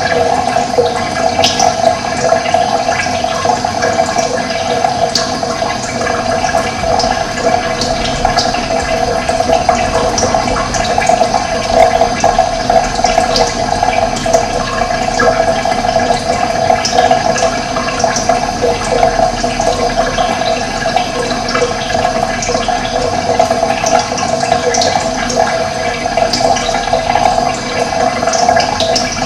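Running water flowing in a steady, even rush, with faint brief high ticks scattered through it.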